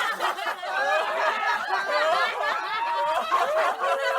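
A group of people laughing together, many voices overlapping in continuous chuckles and guffaws.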